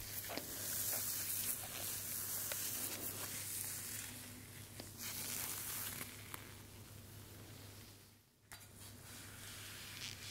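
Close-miked ASMR trigger sounds from objects handled at the microphone: a dry, hissing rustle, strongest over the first few seconds and again around the middle, with scattered light clicks and taps. It cuts out briefly about three-quarters of the way through.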